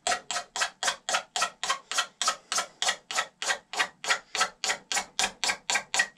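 A blade held vertical scraping the surface of a soaked raw horn, in quick, even strokes of about three or four a second, to smooth it down.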